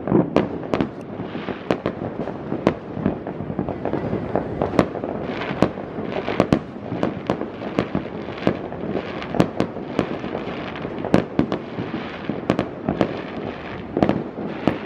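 Many aerial fireworks going off at once: a nonstop, irregular barrage of sharp bangs, some near and loud, others distant, over a steady wash of far-off bursts.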